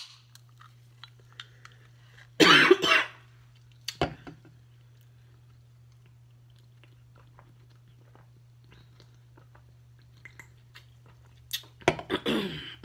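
A 12 oz aluminium soda can being cracked open and drunk from: a loud hissing burst about two and a half seconds in, a sharp click at about four seconds, then faint sips. Another loud breathy burst comes near the end.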